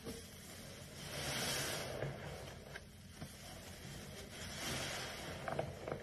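Large soap-soaked sponge squeezed by gloved hands over a basin of suds, wet squelching with foam crackling. The squeezing swells twice, about a second in and again near the end, with a few small pops.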